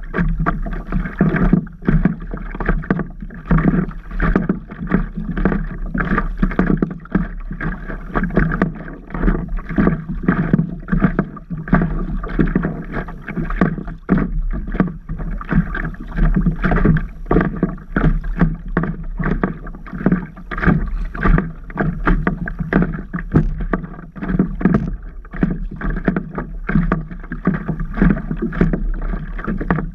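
Water slapping and splashing against a stand-up paddle board, in many short, irregular splashes over a steady wash of water noise.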